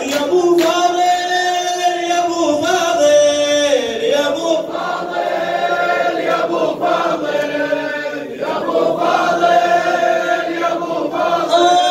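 Large group of men chanting a Shia mourning lament (latmiya) in unison, holding long sung notes, with sharp chest-beating strikes scattered through.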